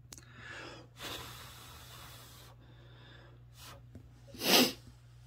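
A man breathing close to the microphone: a long, soft exhale about a second in, then one short, louder breath through the nose near the end.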